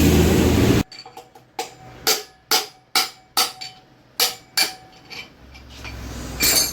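Hammer blows knocking the worn front-wheel bearings out of a Royal Enfield Bullet hub: about eight sharp metal strikes, roughly two a second, each with a short ring. They follow a steady noise that cuts off abruptly under a second in.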